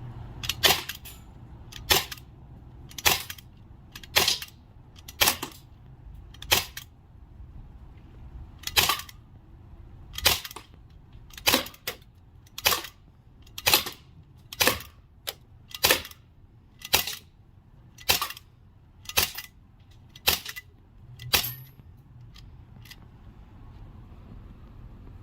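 CO2 airsoft Glock 17 pistol firing a long string of single shots, roughly one a second, each a sharp crack with the slide snapping back.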